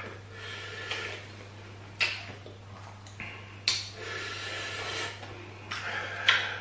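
Close-up eating sounds: chewing and mouth noises with a few sharp breaths and sniffs from people eating a very peppery stew by hand, over a steady low hum.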